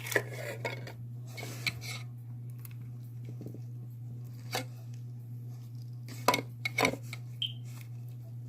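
A green crunchy bead slime and its plastic container being handled, giving scattered sharp clicks and clacks, with a small cluster of them near the end. A steady low hum runs underneath.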